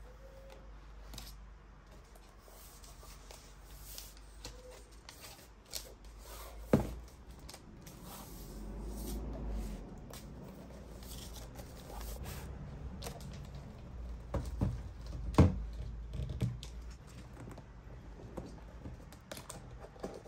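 Hands unpacking a laptop box: the laptop in its protective wrap and the white cardboard insert are lifted out and handled, with soft rustling and scraping, scattered clicks and a few sharp knocks. The loudest knocks come about seven seconds in and again about fifteen seconds in.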